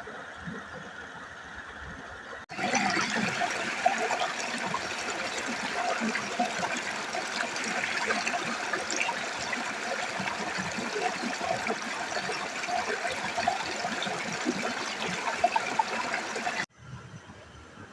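Rushing, splashing water of a mountain stream, a steady noisy rush that starts abruptly a couple of seconds in and cuts off abruptly near the end.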